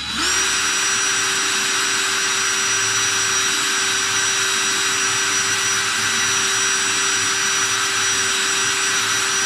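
DeWalt 18V cordless drill running at a steady high speed, spinning a brass rifle case while a dry cloth is held against it to polish it. The motor comes up to speed right at the start with a steady whine.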